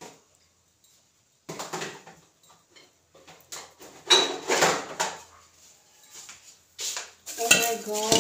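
Clattering and rustling of kitchenware being handled, as a plate and a metal spoon are brought to a pot of popcorn. There are several separate clatters, the loudest about four seconds in.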